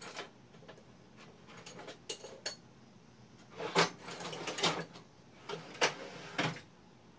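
Irregular clinks, knocks and clattering of small metal parts and hand tools being handled and sorted through, with the loudest clatters about 4 and 6 seconds in.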